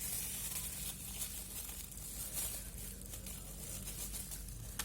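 Plastic packaging rustling and crinkling as it is handled, soft and uneven, over a steady low hum.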